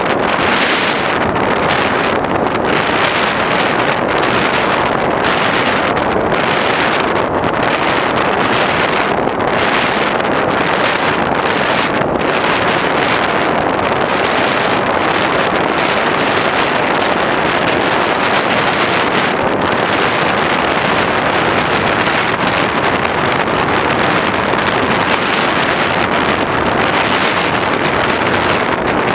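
Steady, loud rush of wind over the onboard GoPro on an X8 FPV plane in flight, with a thin high whine over it.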